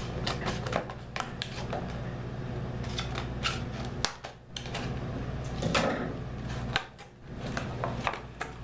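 Stiff clear plastic blister packaging being handled and turned over: irregular crackles and clicks of rigid plastic, over a low steady hum.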